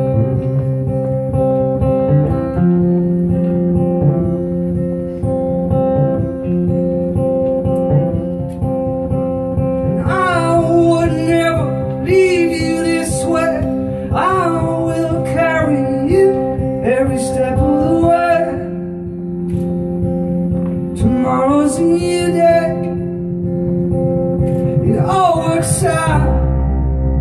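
A live band playing a song: strummed acoustic guitar and keyboard with a band behind them. A man's voice sings over it from about ten seconds in, in several phrases.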